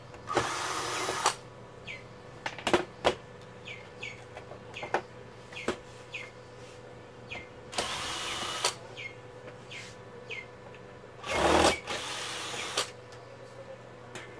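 Cordless drill spinning out screws from a TV's plastic stand bracket in three short runs, the last the longest, with clicks and knocks of the parts being handled in between. A bird chirps over and over in the background.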